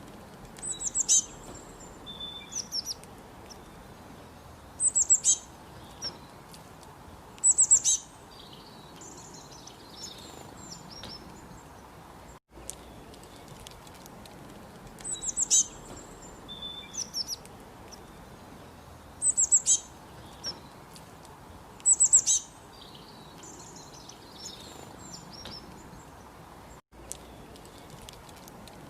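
Small songbird chirping in short bursts of rapid, high, descending notes every few seconds over a faint steady hiss. The same sequence of calls repeats twice.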